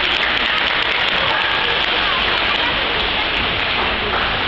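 Steady rush and splash of churning pool water as dolphins push a standing trainer across the surface of the pool.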